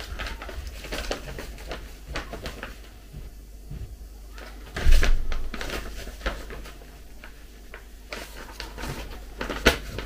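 Paper instruction leaflet rustling and crackling as it is unfolded and handled, in irregular short crinkles, with a louder one about halfway through and a sharp snap near the end.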